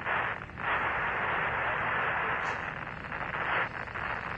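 Radio static hissing on the Apollo 11 air-to-ground voice link, thin and narrow-band like a radio channel: a short burst, a brief dip, then about three seconds of steady hiss that falls away near the end.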